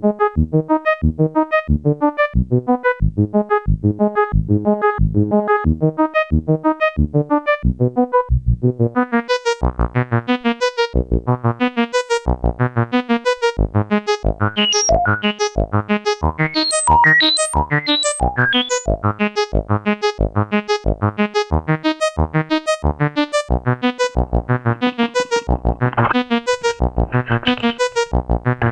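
Electronic background music with a steady pulsing beat; a higher melody joins in around the middle.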